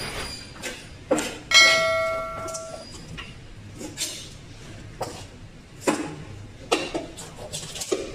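Irregular knocks of a knife and whole fish against a wooden cutting board as fish are cut and shifted. The loudest knock, about a second and a half in, is followed by a clear metallic ring that fades over about a second.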